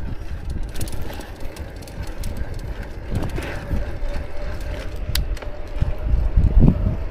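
Bicycle riding along a city street: wind buffeting the microphone and a low rumble of tyres on the road, with a few sharp clicks and rattles from the bike.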